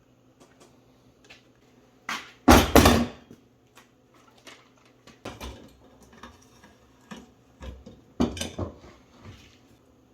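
Scattered knocks and clatter of hard objects being handled, with a loud cluster of hits between two and three seconds in and another just after eight seconds, over a faint steady hum.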